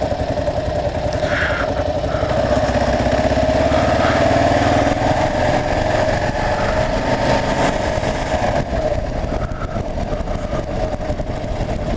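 Kawasaki KLR 650's single-cylinder four-stroke engine running as the motorcycle is ridden. Its note climbs a little over the first few seconds, then eases.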